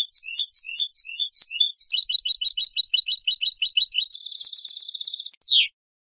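European goldfinch singing: a short figure of three high notes repeated several times, then a fast run of about six or seven notes a second, a dense rapid trill, and a single falling note, after which the song stops shortly before the end.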